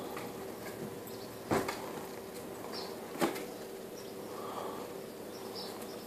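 A small dog's paws knocking against a window and stucco wall as it jumps at it: two sharp taps, about a second and a half and three seconds in, over a faint steady hum.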